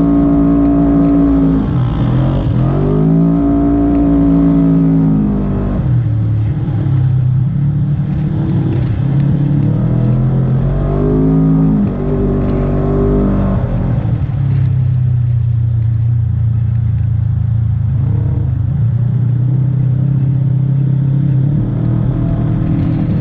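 Segway Villain side-by-side UTV engine revving hard, dropping off and climbing again several times as it is driven through the desert, then running at a steadier, lower pitch for the last several seconds.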